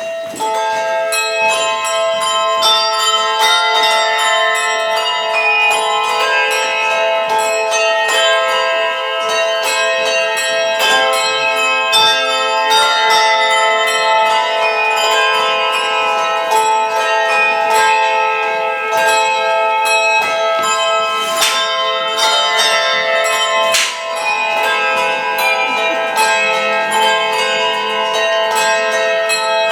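Handbell choir playing a tune: many bells struck in quick succession, their tones ringing on and overlapping into chords. A couple of sharp cracks cut through about two-thirds of the way in.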